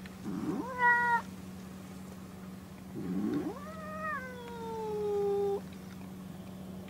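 A domestic cat calls twice. The first is a short rising meow about half a second in. The second, about three seconds in, is a longer drawn-out call that rises and then slowly falls in pitch before breaking off.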